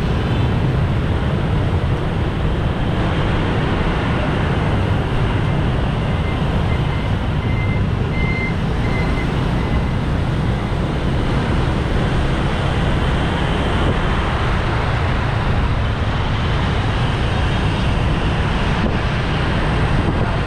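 Steady road noise of riding in dense motorbike traffic: scooter engines and tyres running, with a constant low rumble.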